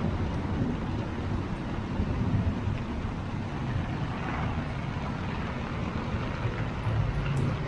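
Heavy rain falling on a busy city street, with the steady low rumble of road traffic going past.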